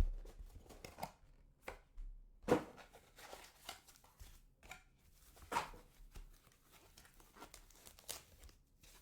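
Packaging rustling and crinkling while a sports card is unwrapped and handled, with a few light taps and clicks between the rustles.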